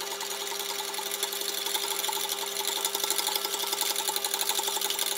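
A wire balloon whisk beating rapidly against a stainless steel mixing bowl, a fast, even clatter of strokes. This is the eggs being tempered: whisked without stopping while the warm cream goes in a little at a time, so they don't cook.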